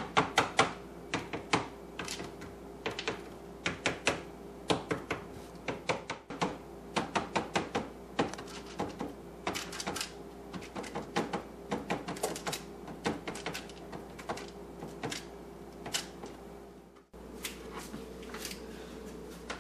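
Fork tines pricking rolled cracker dough on a parchment-lined sheet pan: quick, irregular taps, several a second, that stop about seventeen seconds in.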